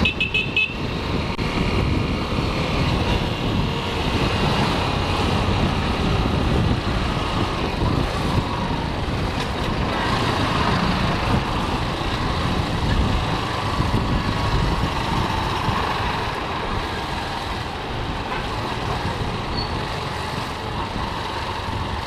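Yamaha XTZ 150 motorcycle's single-cylinder engine running at low speed, its pitch drifting up and down as the bike creeps between rows of cars, over a steady rumble. There is a brief high-pitched beeping right at the start.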